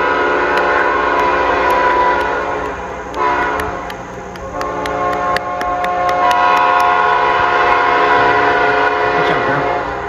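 Locomotive's Nathan P5 five-chime air horn sounding a loud chord in long blasts. The horn restarts about three seconds in and again about five and a half seconds in.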